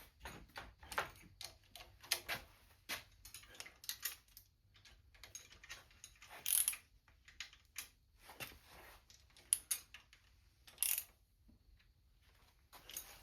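Socket ratchet clicking in short, irregular runs as the intake manifold bolts on a small-block Chevy V8 are snugged up, the bolts having worked loose.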